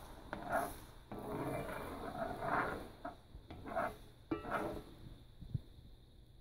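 A spatula scraping and pushing scrambling eggs across the bottom of a cast iron skillet in a series of strokes, with a short knock against the pan near the end.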